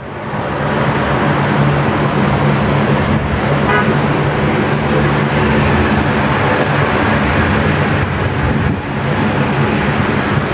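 Boeing 767-300 jet engines running steadily as the airliner taxis and lines up on the runway: a loud, even jet noise with low steady droning tones.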